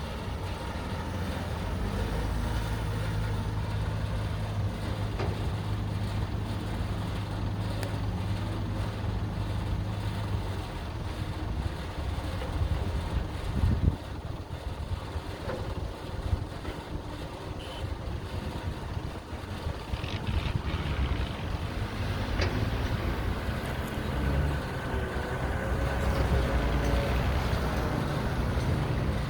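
Excavator diesel engine running under work, a steady low drone whose note shifts now and then. There is a sharp knock about halfway through, and a wavering higher whine joins in later.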